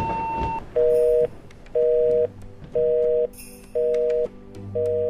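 Telephone busy signal: a two-note beep about half a second long, repeating once a second (five beeps), after a single higher beep at the very start. It is laid over a low, steady electronic music drone with faint ticks, as part of a song intro.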